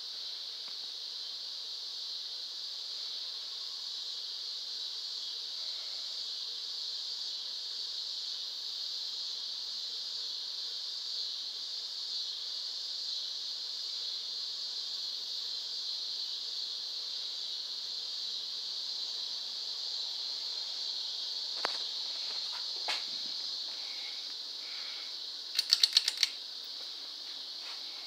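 Hampton Bay St Claire ceiling fan running at speed, a steady high-pitched hiss. Two single clicks come about three-quarters of the way in, and a quick run of about five sharp, louder clicks follows near the end.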